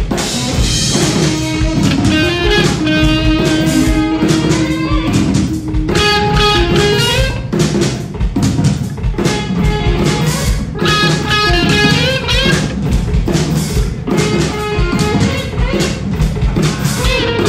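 Live Southern rock band playing: electric guitars playing melodic lines over bass guitar and a drum kit with a steady beat.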